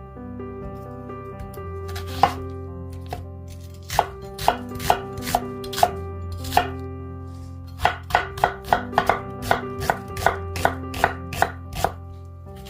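Chopping on a cutting board in quick runs of sharp strikes, about three a second, over soft background music; a single strike comes about two seconds in, and the main runs begin about four seconds in, with a short pause in the middle.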